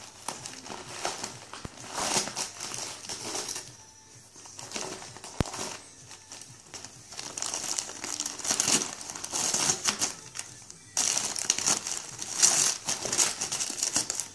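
A cat crinkling a crumpled wrapper as it bites and paws at it, in irregular bursts of rustling, with the longest and loudest crinkling near the end.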